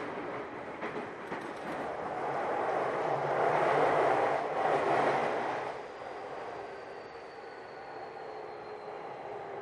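Running sound of a Yokohama Minatomirai Railway Y500 series electric train heard from on board. The rumble swells to its loudest a few seconds in, drops off sharply after the midpoint, then settles into quieter running with a faint high whine slowly falling in pitch.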